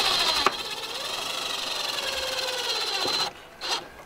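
Cordless drill-driver running under load as it drives a screw into the roof-mounted cable entry cover, a steady motor whine for about three seconds, then a brief second pulse of the trigger near the end.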